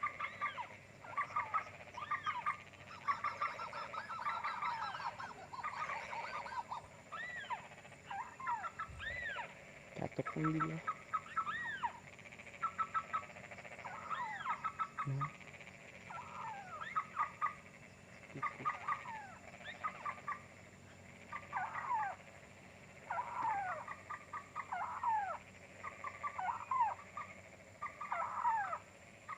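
Birds calling over and over: short arching chirps and quick stuttering trills, coming in bursts about once a second.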